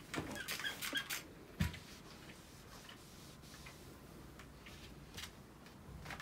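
Crinkling and rustling of a stiff sheet of patterned shoji paper being unfolded and handled, with a dull thump about one and a half seconds in, then fainter scattered rustles and clicks.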